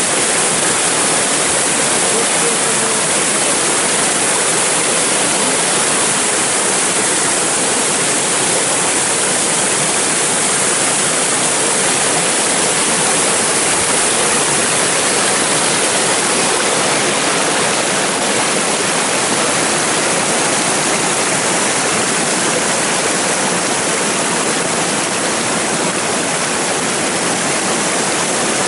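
Rain-swollen floodwater pouring over small waterfalls and rushing down a rocky ravine bed: a steady, loud rush of water.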